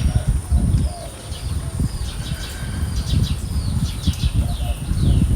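Purple martins chirping and warbling in quick, repeated short notes and falling sweeps, over an irregular low rumble of wind buffeting the microphone.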